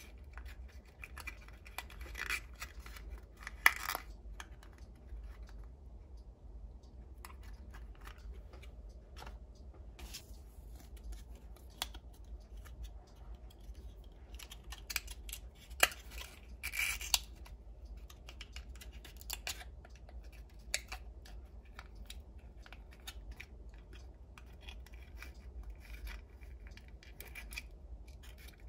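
Small plastic toy pieces and packaging being handled: scattered light clicks, taps and short scrapes, a few sharper ones standing out, over a steady low hum.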